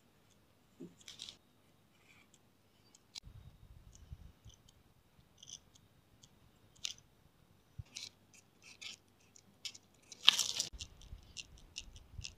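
Pen and marker tips scratching and ticking on paper in short, irregular strokes, with a louder scrape about ten seconds in.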